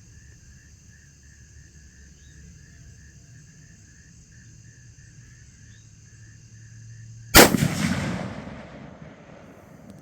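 A single .30-06 rifle shot about seven seconds in, a sharp report followed by an echo that dies away over about a second and a half. Crickets chirp steadily underneath.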